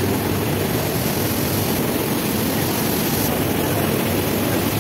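Sugar factory processing machinery running: a loud, steady mechanical roar with a low hum underneath.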